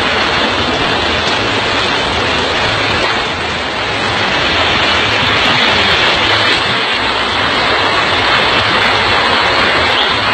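Heavy rain and rushing floodwater on a street: a loud, steady hiss with no breaks, easing slightly about three seconds in.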